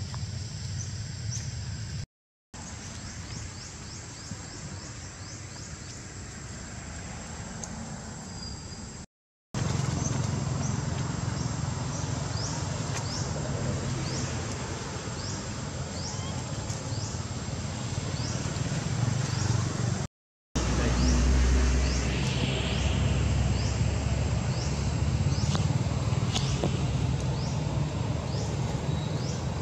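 Outdoor ambience: a steady low rumble under short, high, falling chirps that repeat every second or so, with a thin steady high tone. It drops out briefly three times.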